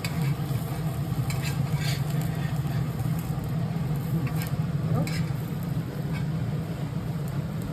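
Dosa cooking on a hot tawa: a faint sizzle and a few short scrapes and taps of a spatula on the griddle, over a steady low hum.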